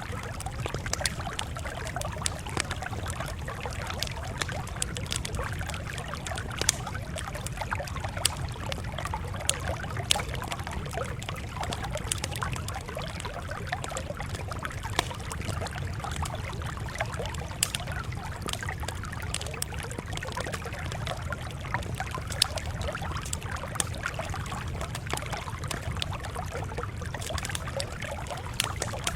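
Campfire burning with a steady low rumble and frequent irregular crackles and sharp pops of the burning wood.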